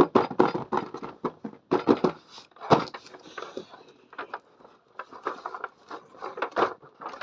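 Small toy kitchen pieces being handled: a run of irregular light clicks and clatters, with a brief rustle in the middle.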